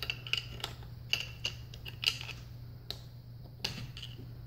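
Irregular light metallic clicks and taps as a tool works the front band servo adjuster of a 1955 Oldsmobile Hydra-Matic transmission, the adjuster being set until the servo piece wiggles freely.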